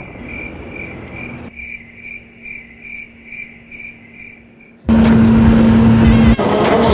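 Cricket chirping, an even run of high chirps about two or three a second over a faint steady hum; in an airliner cabin this is an edited-in cricket sound effect. About five seconds in it stops and loud music cuts in abruptly.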